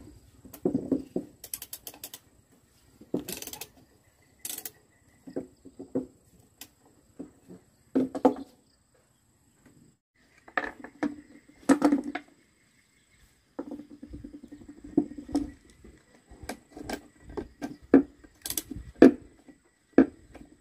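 Socket ratchet wrench clicking in short bursts on a chainsaw's bar nuts, mixed with clinks and scrapes of the metal socket and saw parts being handled.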